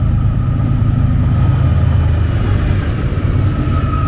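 BNSF freight train passing at close range: a loud, steady low rumble with a thin, steady high tone above it.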